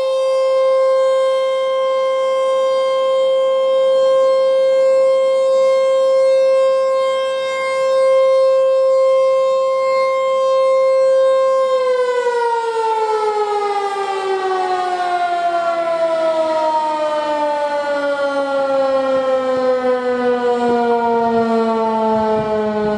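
ASC T-128 outdoor warning siren sounding a steady single-pitch alert tone, then, about twelve seconds in, shutting off and winding down, its pitch falling slowly and steadily as the rotor coasts, marking the end of the alert cycle.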